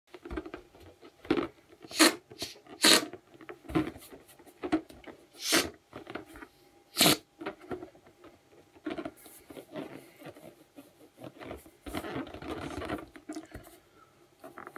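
Latex party balloon being rubbed and squeezed in the hands, a series of short, sharp rubbing sounds, loudest in the first half. Near the end comes a longer breathy stretch as the balloon is put to the mouth to be blown up.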